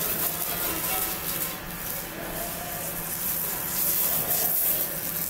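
A piece of fat rubbed over a hot cast-iron griddle plate to grease it, giving a scraping, hissing sizzle.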